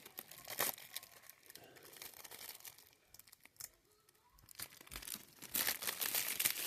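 Packaging crinkling and tearing as a present is handled. A burst at the start, a quieter lull in the middle, then steady crinkling again from near the end.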